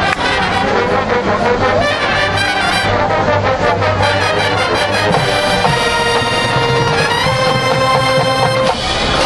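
High school marching band playing, brass section in front with trumpets and trombones holding sustained chords over low brass and drums; the chord changes several times, with a drop in level near the end.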